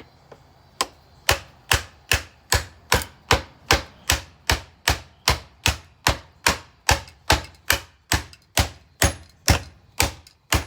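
A bagged Oreck upright vacuum cleaner being struck over and over, about two and a half heavy blows a second, in an even, steady rhythm of sharp impacts that starts a little under a second in.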